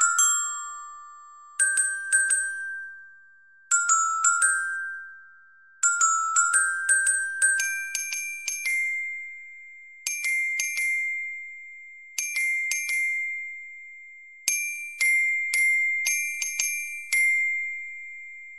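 Computer-rendered solo mallet percussion with a high, bell-like tone, playing a single-line melody in a lively 6/8. Short phrases of struck notes are each left to ring and die away before the next begins.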